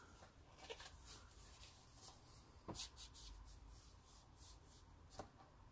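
Faint rustling and scattered light ticks of paper and packaging being handled, with two louder taps, one about two and a half seconds in and one near the end.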